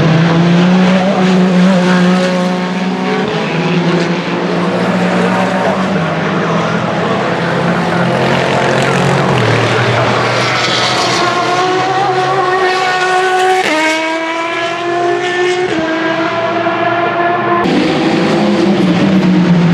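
Hypercar-class endurance prototype race cars on track, their engines running hard. About two-thirds of the way in, one car's revs climb steadily, then step abruptly at a gear change before rising again.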